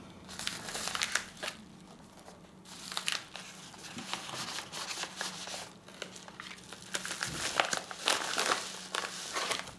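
Packaging crinkling and rustling in irregular bursts as a small parcel of ceramic pivot cage bearings is unwrapped by hand, over a faint steady hum.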